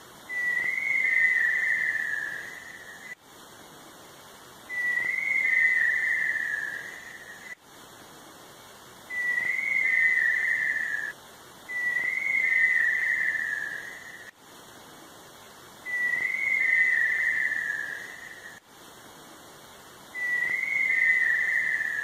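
Tinamou whistling: a long, wavering whistle that steps slightly down in pitch, given six times, most of them about four seconds apart.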